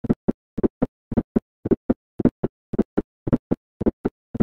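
Heart sounds of an S4 (atrial) gallop at a fast rate: a three-beat rhythm repeating about twice a second. In each beat a fourth heart sound, made by atrial contraction, falls just before the first heart sound, followed by the second heart sound.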